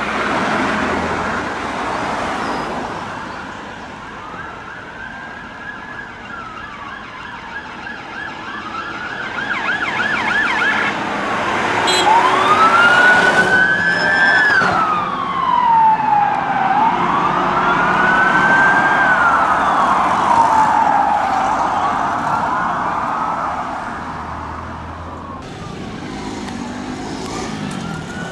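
Police car sirens wailing in slow rising and falling sweeps, with a quicker warbling yelp partway through. They are loudest around the middle as a police car passes close, over the sound of traffic.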